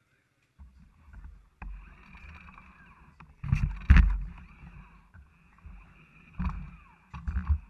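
Rumbling and knocks of handling noise on a camera mounted on a pit bike as the parked bike is moved about, with the loudest knock about four seconds in and more bumps near the end.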